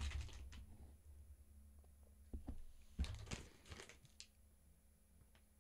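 Faint rustling and crinkling of a paper sheet and plastic packaging being handled, in a few short spells that die away after about four seconds.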